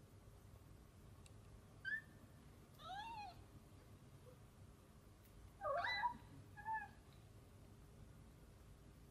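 Newborn kitten mewing: four short, high, thin mews, the loudest about six seconds in.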